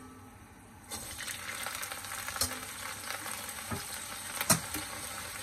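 Fresh spinach going into hot oil in a nonstick wok and starting to sizzle about a second in, the sizzle then holding steady. A few sharp knocks sound over it, the loudest near the end.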